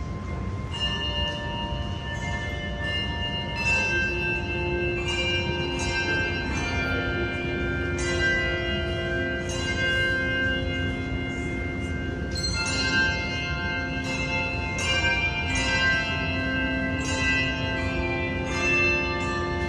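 Bells ringing a sequence of struck notes, about one a second, each note ringing on and overlapping the next, over a steady low rumble.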